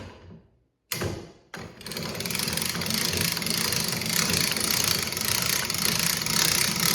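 Kayak anchor winch being run, reeling in line: a couple of knocks, then a steady whirring from about two seconds in.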